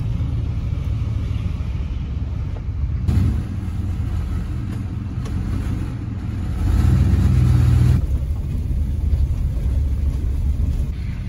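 Vehicle engine and tyre noise heard from inside the cab while driving: a steady low rumble that shifts abruptly a few times and grows louder for a second or so past the middle.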